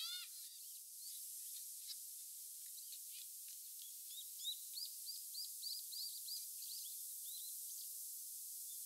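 A small songbird calling over a steady high outdoor hiss. One call right at the start, then from about four seconds in a quick run of short, arching chirps, about four a second, lasting some three seconds.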